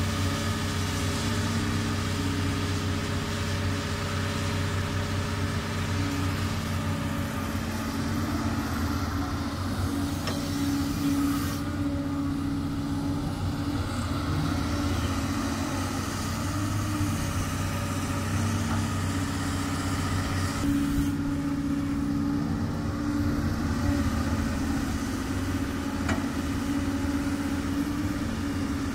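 Doosan DX200 crawler excavator's diesel engine running steadily, a low drone with a steady hum. The higher hiss over it thins out twice, about twelve and twenty-one seconds in.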